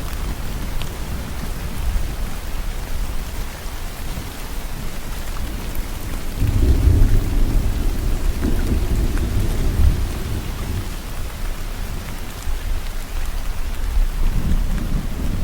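Steady rain falling, with low rolling thunder that swells about six seconds in, fades, and builds again near the end.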